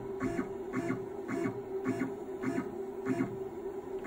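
CNC 6040 router standing powered with a steady electrical hum and a soft pulsing that repeats about twice a second.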